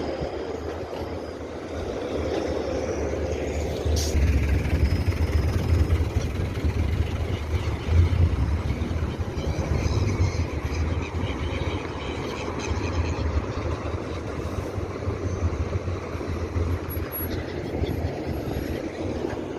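Birds chirping faintly at times over a steady low rumble, which grows louder about four seconds in.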